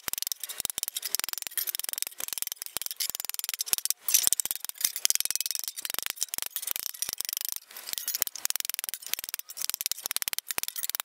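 A wooden mallet beating a thin steel sheet against a wooden stump and a steel bar, in a rapid, even run of sharp blows, several a second. The sheet is being flattened to beat out the wrinkles left from pressing it into shape.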